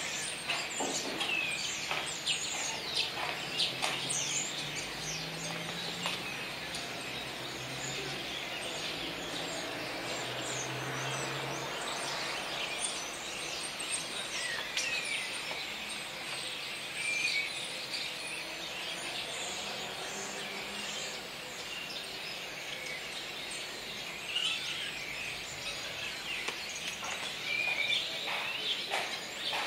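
A flock of common starlings chattering without a break: a dense mix of whistles, squeaks and clicks, with louder bursts of calls now and then.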